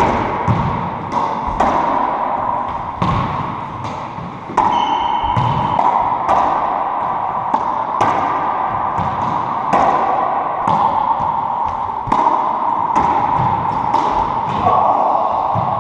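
A racquetball rally: the rubber ball smacking off racquets, court walls and the hardwood floor in a string of sharp hits, about one or two a second, over a steady background hum.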